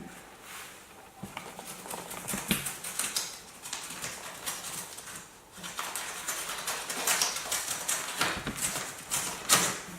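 Paper envelope being slit open along its short side with the small blade of a credit-card multitool, heard as a run of quick scratchy rips, clicks and paper rustling.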